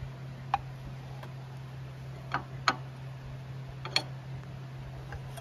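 Light clicks and taps of a metal water pump cover being handled and seated against the engine case, about five in all, spread out, over a steady low hum.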